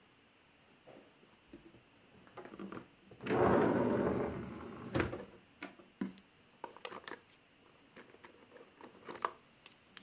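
Household handling sounds in a small room: scattered light clicks and knocks, with a louder rustling, noisy stretch of about a second and a half starting about three seconds in.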